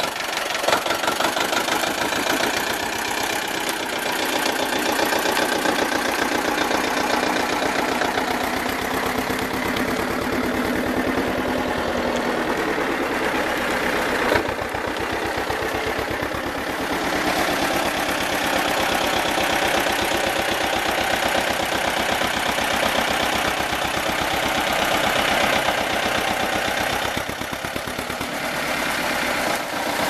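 Steyr 180 tractor's two-cylinder diesel engine running steadily with an even firing beat.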